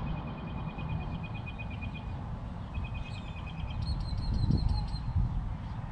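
A bird singing: rapid trilled phrases of repeated high chirps, two in the first few seconds and a higher, faster one about four seconds in, over a steady low rumble.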